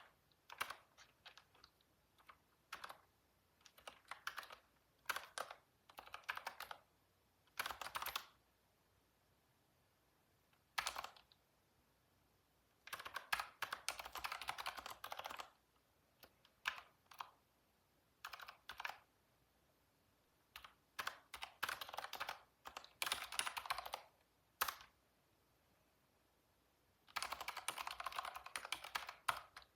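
Computer keyboard typing in irregular bursts: quick runs of keystroke clicks broken by pauses of a second or two, with two longer, denser runs about halfway through and near the end.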